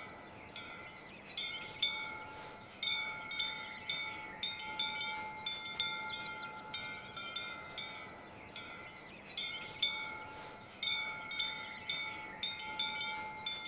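Repeated ringing metallic strikes, about two a second in short runs with brief pauses between. Each strike rings at the same few pitches.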